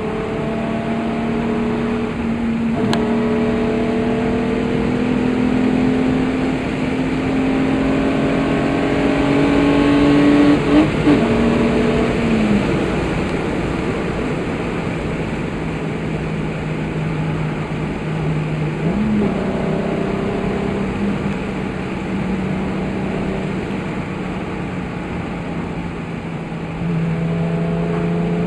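VR6 engine of a Mk2 Volkswagen Golf heard from inside the cabin while driving: it pulls with its pitch climbing slowly for about ten seconds, then eases off and drops, picks up again partway through and holds a steady cruise.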